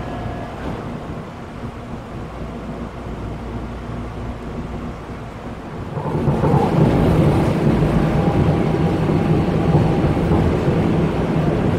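Seoul Subway Line 4 electric commuter train heard from inside the car: a steady rumble of running wheels and motors. About six seconds in it becomes louder and deeper, with a faint steady whine over the rumble, as the train runs at speed.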